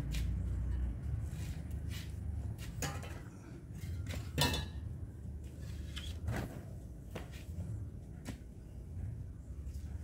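A handful of irregular light knocks and clicks, the loudest about four and a half seconds in, over a low steady rumble.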